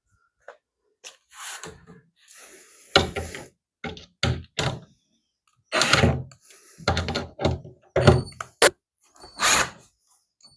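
Irregular knocks, clunks and short scrapes of plastic pool-ladder parts and bolt hardware being handled and fitted during assembly.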